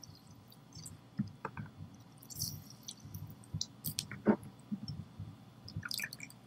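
Lemon halves squeezed by hand over a small glass bowl: wet squishing with scattered light clicks and knocks, the loudest about four seconds in.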